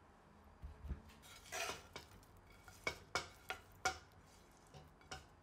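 Cookware knocking and clinking against a ceramic baking dish, with a brief scrape about a second and a half in. A frying pan is tipped over the dish and sliced sausage and onions are pushed out of it with a spatula. The sharp clinks are thickest between about three and four seconds in.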